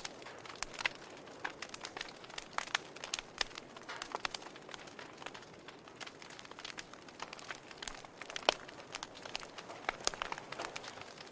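Wood fire burning in a fireplace, crackling with irregular sharp pops and snaps over a soft steady hiss; one louder pop about eight and a half seconds in.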